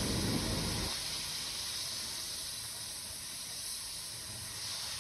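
Peas and yogurt sizzling in a steel pot over the stove, a steady hiss, a little fuller during the first second while the spoon is in the pot.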